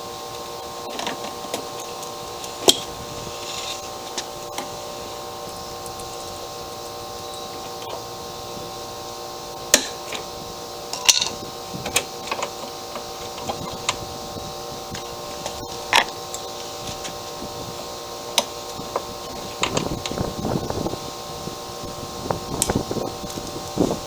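Scattered clicks, knocks and rustling from hand work on a Toro self-propelled mower's drive cable and its fittings as the cable is disconnected, over a steady background hum; the handling grows busier near the end.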